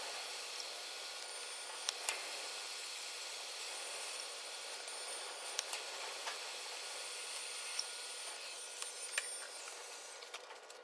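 Jasic TIG welder's arc hissing steadily as a run of weld is laid onto a steel steering-joint stub, with a few light clicks. The hiss tapers off near the end as the arc is stopped.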